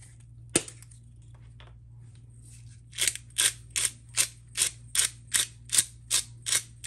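A hand-held garlic pepper seasoning grinder being twisted, grinding in a steady run of strokes, about two and a half a second, from about three seconds in. A single click comes about half a second in.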